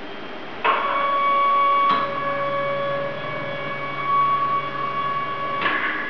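Joint motors of a Romik robot arm whining as the arm swings up, starting with a click about half a second in. A lower hum joins with a second click about two seconds in, and the motors stop with a click near the end.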